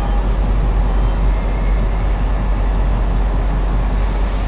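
Steady running noise of a stationary X61 (Pågatåg) electric commuter train at the platform, with a heavy low rumble and no clear rhythm or change.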